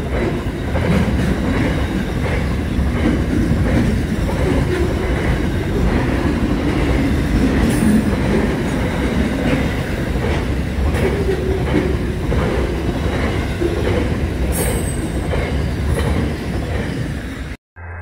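Freight train wagons passing close at speed: a steady rumble with the clatter of steel wheels over the rails. Two brief high wheel squeals come about halfway and again later. The sound cuts off abruptly near the end.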